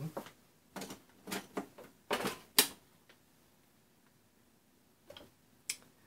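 Clicks and knocks from a power plug and cord being handled and pushed into a socket, the sharpest click about two and a half seconds in, with a few softer clicks near the end.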